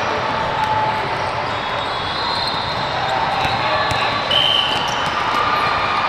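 Live basketball game sound in a large, echoing hall: a ball bouncing on a hardwood court amid the scattered voices of players and spectators. A brief high-pitched squeak comes about four seconds in.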